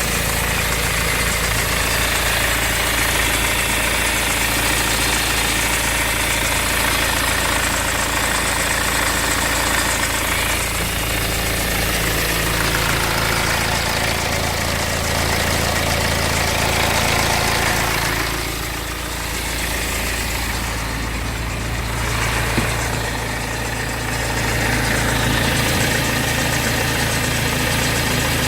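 BMW 520d four-cylinder diesel engine idling steadily, with a noise that the owner takes for the timing chain. The sound drops a little in level for a few seconds past the middle.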